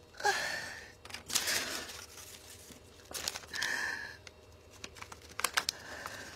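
A man breathing heavily, about four breaths and sighs in a row.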